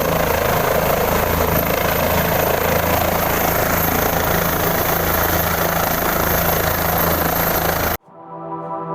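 Helicopter running close by: a loud, steady low drone of the rotor with a thin high whine over a wash of noise. It cuts off abruptly about eight seconds in, replaced by soft keyboard music.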